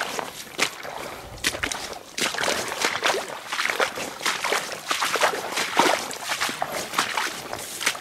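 Small river waves lapping and sloshing at a sandy shoreline in quick, irregular splashes.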